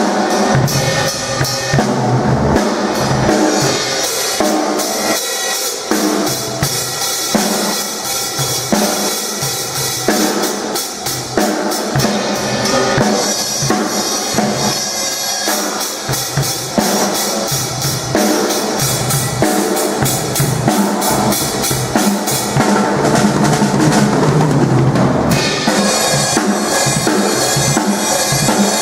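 Drum kit played without a break: a busy beat of rapid drum and cymbal hits, with quick, even runs of strokes in places.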